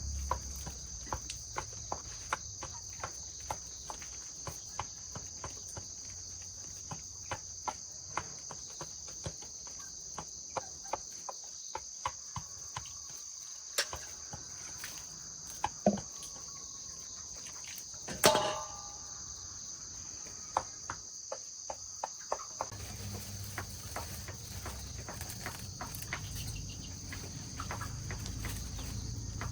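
Steady high chorus of insects, crickets by the sound, with scattered light clicks and taps and one louder knock about eighteen seconds in. A low rumble comes in near the end.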